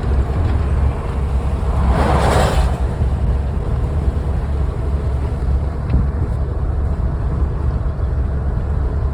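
Strong wind buffeting the microphone, a heavy low rumble over the sound of a vehicle moving along the road, with a brief rushing swell about two seconds in.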